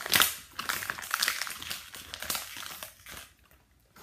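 Plastic toy packaging crinkling and crackling in quick, irregular bursts as it is handled and the toy eggs are popped out of it; it dies away about three seconds in.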